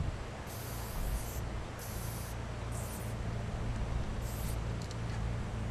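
Aerosol spray paint can hissing in four short bursts as a graffiti piece is sprayed onto a freight car, over a steady low rumble.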